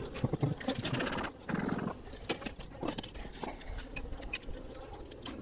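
Honeybees buzzing steadily over an open hive, with the clicks and knocks of a metal hive tool and wooden frames, thickest in the first three seconds. Two short, low groaning sounds in the first two seconds are the loudest part.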